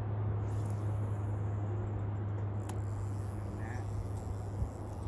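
Steady rush of river water, with a single light click about halfway through as a spinning-rod cast goes out.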